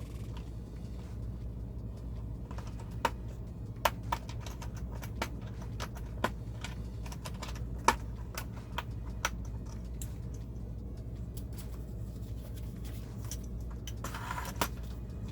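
Plastic LEGO pieces being handled and pressed together: a string of sharp, irregular clicks and taps, then a brief rustle near the end.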